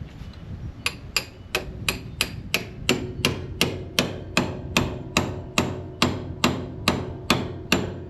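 Steady, rapid hammer blows on steel, about three a second with a ringing ring after each, starting about a second in. The hammer is driving a tie rod end fork to separate a stuck tie rod end from a backhoe steering cylinder.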